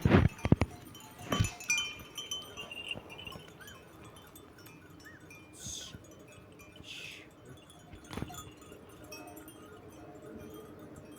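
Several sharp knocks at the start, another about a second later and one more near the end, with faint tinkling of small bells in between.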